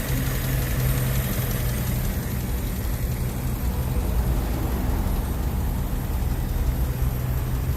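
Honda Civic's D16Y1 four-cylinder engine idling steadily, a smooth even hum. The owner says the rod knock is gone since a Blue Devil sealant treatment.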